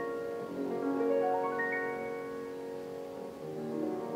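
Classical solo piano music: rising runs of notes over held lower tones, the runs climbing a second or so apart.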